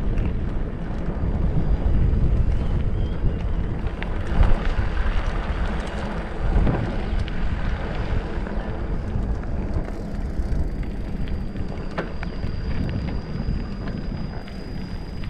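Wind buffeting the microphone of a handlebar camera on a moving mountain bike, with tyre rumble from the grooved concrete road surface. There are a couple of sharp clicks, and a faint steady high tone joins about two-thirds of the way in.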